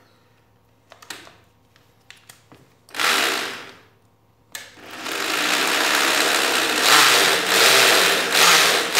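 Electric drill with a 10 mm bit boring into a wooden chair frame to take screws: a short burst about three seconds in, then a long run from about halfway that swells and eases a few times under load.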